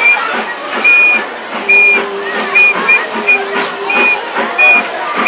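Steam locomotive working hard as it approaches, its exhaust beating in loud, hissing chuffs about once a second.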